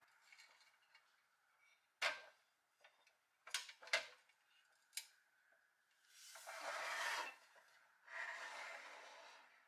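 A restored pressed-steel Tonka toy dump truck being handled on a tabletop: a few sharp metallic clicks and knocks, then two longer rubbing, scraping sounds of a second or so each.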